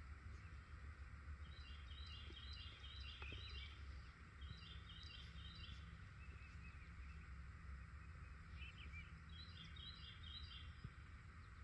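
Faint songbird singing: a short run of quick repeated chirps, given three times, with a few softer single calls between, over a low steady background rumble.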